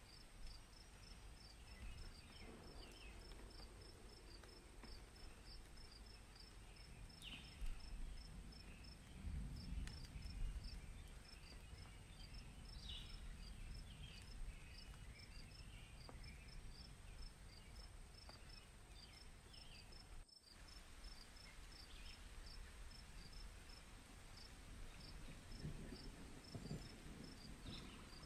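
Faint ambience of crickets chirping in a quick, even rhythm over a steady high-pitched hum.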